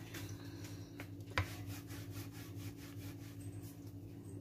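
Rolling pin rolling atta dough on a marble board: soft, repeated rubbing strokes over a steady low hum, with a sharp knock about a second and a half in.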